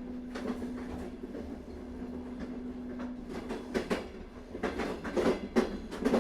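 Train running on rails, a steady rumble with knocks of the wheels over the rail joints that grow louder in the second half. A soft held piano note fades out in the first few seconds.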